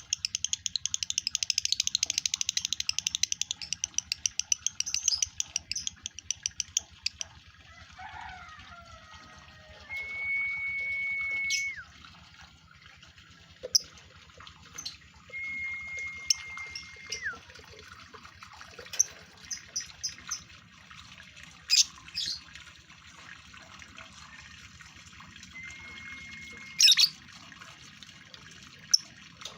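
Male lovebird in breeding condition singing: a long, very fast, high chattering run for about the first seven seconds, then scattered sharp chirps and three held whistled notes that each drop in pitch at the end.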